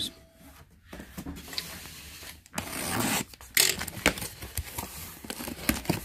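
Cardboard boxes being handled and opened: cardboard rubbing and scraping, with louder scrapes and a few light knocks around the middle.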